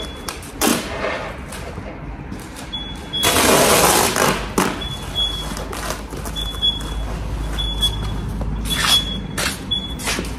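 Workshop handling noise around foil-faced insulation boards: short crackling rustles of foil, with one longer loud hiss about three seconds in, over a steady low hum. A short high beep repeats about once a second from about three seconds in.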